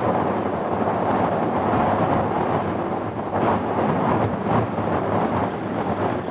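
Wind buffeting the microphone: a steady rumbling rush with a few gusts.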